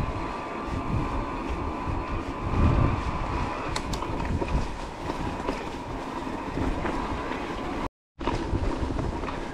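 Electric mountain bike being ridden over a rough trail: uneven rumble of tyres and wind on the microphone, with a thin steady whine, likely from the motor. The sound cuts out for a moment near the end.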